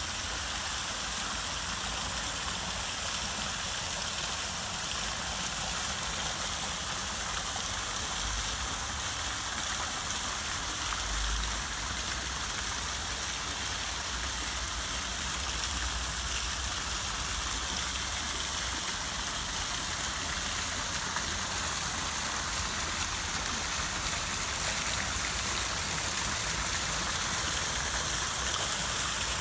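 Steady splashing hiss of water falling into an ornamental pond, from a fountain's spray jet and a small waterfall pouring over a rough stone wall.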